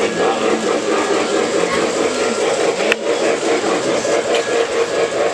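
Indistinct chatter of many voices at once, steady throughout, with a single sharp click about three seconds in.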